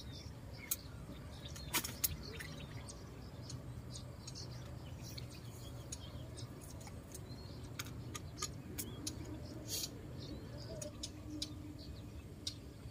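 Faint small-bird chirps and a few sharp ticks over a steady low background hum.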